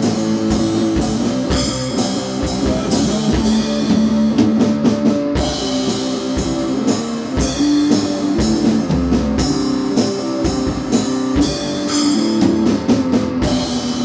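Rock band playing an instrumental passage without vocals: drum kit and guitars, with a quicker run of drum hits near the end.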